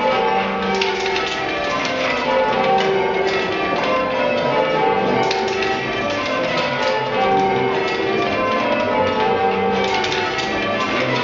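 A ring of eight church bells by John Taylor & Co, rung full circle by hand ropes, the bells striking one after another in a continuous, even sequence, each note ringing on beneath the next.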